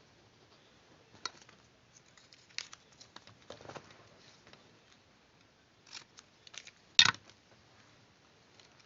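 Paper and cutting tools being handled while a paper model is cut out: scattered small snips, taps and rustles, with one sharper, louder click about seven seconds in.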